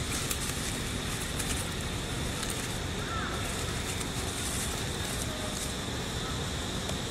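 Steady outdoor background noise with a faint high steady whine, and scattered soft crackles of dry leaf litter as monkeys scuffle on it; a brief faint chirp about three seconds in.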